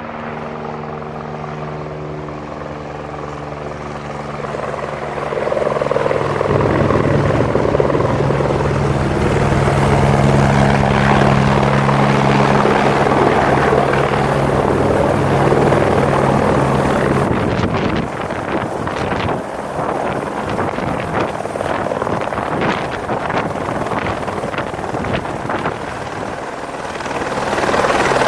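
Helicopter rotor and engine running with a steady hum that grows louder about six seconds in. About two-thirds of the way through it turns rougher and gustier, with wind buffeting the microphone.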